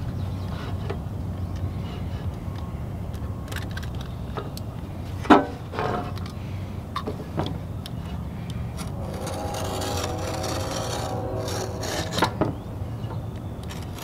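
Utility knife scoring and cutting a thick rubber mud flap: short scraping and rubbing strokes, with a sharp knock about five seconds in and a longer drawn cut with a faint squeal about nine to eleven seconds in, over a steady low rumble.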